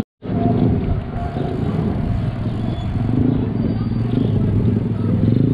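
Dirt bike engines running steadily in a group ride, a low even hum after a brief gap at the start, with road and wind noise.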